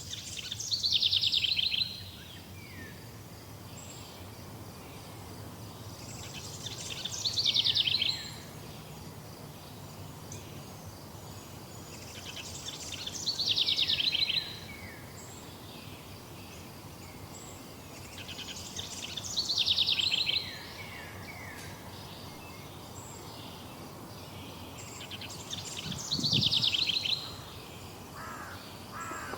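A songbird singing the same short, high, descending song five times, about every six seconds, over faint steady background noise.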